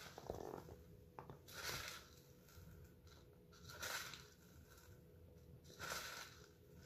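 Near silence: room tone with a few faint, soft swells of noise.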